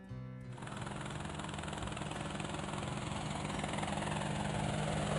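Cartoon helicopter sound effect: a rapidly chopping rotor over a steady engine hum, growing louder as the helicopter approaches.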